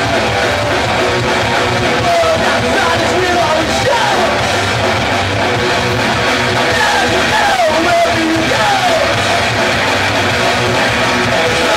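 Punk rock band playing live: loud distorted electric guitars over bass and drums, keeping a steady loud level throughout.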